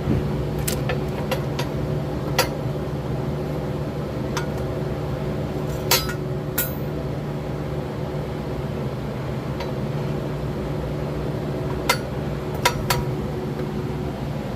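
Scattered metallic clinks and taps of tools and parts being handled, about nine in all, the loudest around six seconds in and twice near the end, over a steady low hum.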